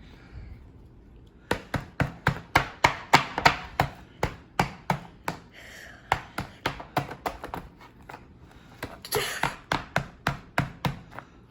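Repeated sharp knocks, about three a second, of a hard toy casing being struck to break it open, with two short pauses between runs of blows.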